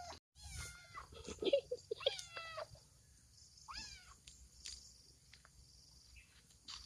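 Domestic cat meowing, a few short calls in the first four seconds. These are followed by scattered faint snaps as splitgill mushrooms are pulled off the wood.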